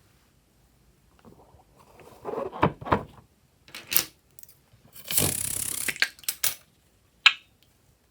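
Hands-on slime-making handling sounds: a few soft sticky squelches, then a short hissing rush about five seconds in, ending in a single sharp click with a brief ring near the end.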